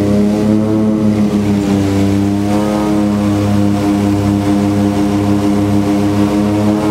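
Cabin drone of a de Havilland Canada Twin Otter's two Pratt & Whitney PT6A turboprop engines and propellers on approach to land. The pitch wavers up and down in the first few seconds, then holds steady.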